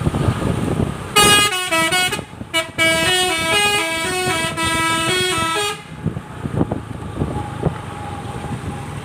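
Multi-tone telolet horn playing a quick melody of stepping notes for about four and a half seconds, over vehicle engine and road noise. The horn starts about a second in and stops suddenly.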